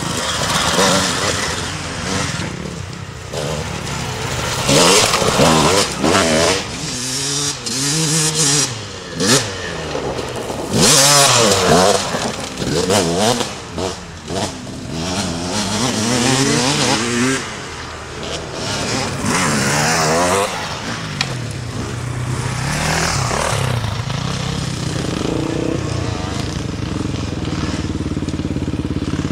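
Off-road enduro motorcycles ridden up a rocky trail one after another, engines revving up and down as the riders work the throttle. The loudest passes come at about 5 s, from about 11 to 13 s and from about 16 to 20 s.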